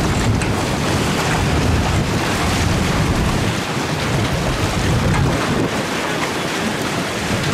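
Strong wind buffeting the microphone in a steady low rumble, over the wash of choppy, rough sea water.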